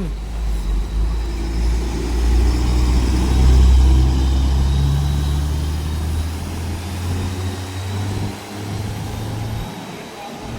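Intercity coach's diesel engine pulling away and accelerating, loudest about three to four seconds in, then fading as the bus moves off.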